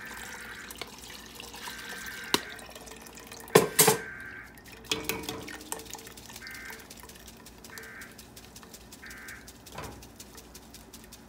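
Water poured from a plastic blender jar through a fine-mesh metal strainer into a pot of chile salsa, splashing and dripping through the mesh. Two loud sharp knocks come about two and a half and three and a half seconds in. After them the sound settles into softer dripping.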